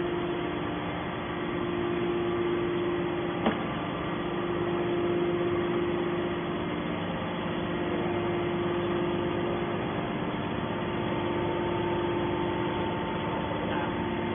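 Horizontal hydraulic scrap-metal baler running with a steady machine hum, with one sharp knock about three and a half seconds in.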